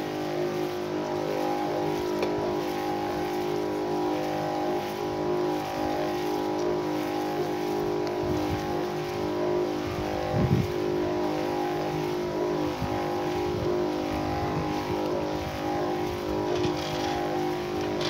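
Battery-powered electric knapsack sprayer's pump motor running steadily, a constant even hum while insecticide is sprayed through the lance.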